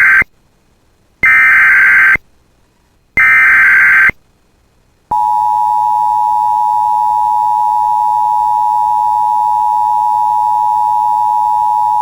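Emergency Alert System alert opening: the end of the first and then the second and third of three one-second SAME digital header bursts, evenly spaced. A steady single-pitch attention tone starts about five seconds in. Together they signal the start of a severe thunderstorm warning.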